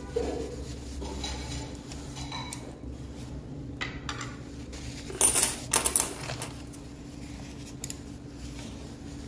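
Small metal pick scraping and picking at a raw egg's shell, chipping pieces off the inner membrane, with scattered sharp metallic clicks, loudest in a cluster about five to six seconds in.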